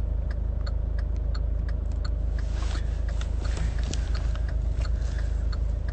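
Inside a car cabin: a steady low rumble of the moving car under an even ticking, about two to three ticks a second, like a turn-signal relay. A brief rush of hiss comes a little past halfway.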